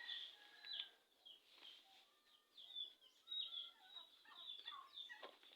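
Faint chirping of several small birds, many short quick calls overlapping one another.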